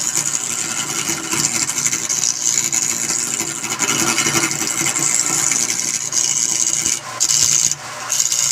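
Wood being worked on a running wood lathe: a steady scraping of a tool or abrasive against the spinning workpiece, with two brief breaks near the end.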